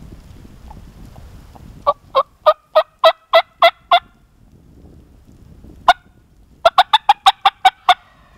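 Turkey call sounding hen yelps close by: a run of about eight sharp yelps, a single note a couple of seconds later, then a quicker run of about nine notes near the end, used to make a nearby wild turkey gobbler answer.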